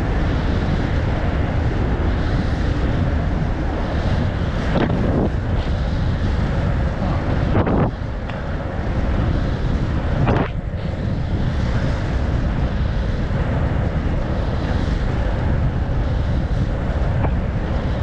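Loud, steady wind rushing over the microphone of an inline speed skater moving at race speed, with a few brief swishes.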